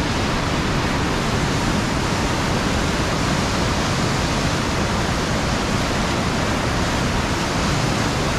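Niagara River rapids just above the falls, white water rushing in a steady, loud roar.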